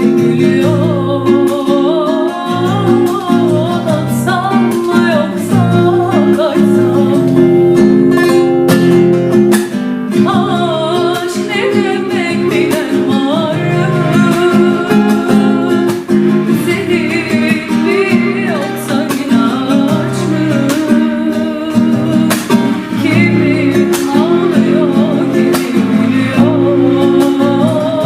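Music: an acoustic guitar strumming and plucking chords under a wavering melody line, from the singer or the kaval.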